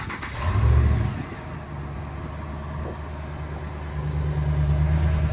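Rebuilt Hemi V8 of a Ram pickup starting with a short rev flare, then settling into a steady idle that gets slightly louder about four seconds in.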